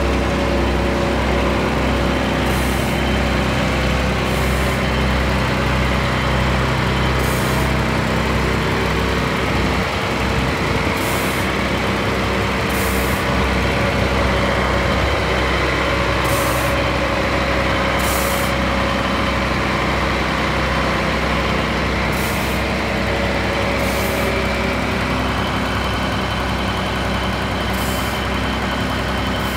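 Scania vacuum truck's diesel engine running steadily, with short hisses recurring every few seconds, mostly in pairs.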